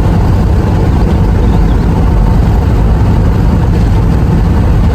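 Steady, loud low rumble of engine and road noise inside a moving truck's cabin.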